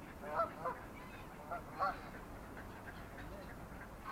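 Water birds calling: short calls in two pairs, the first about half a second in and the second around a second and a half in, over a steady low background rumble.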